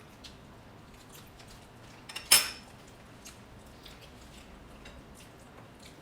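Cutlery clinking against plates while eating: scattered light clicks, with one louder clatter a little over two seconds in.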